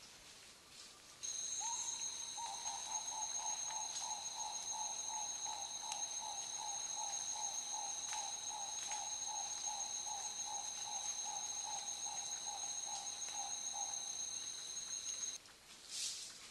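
A rainforest insect's continuous high-pitched shrill starts suddenly about a second in and cuts off abruptly near the end. Beneath it, a lower note pulses steadily about two and a half times a second for most of that stretch.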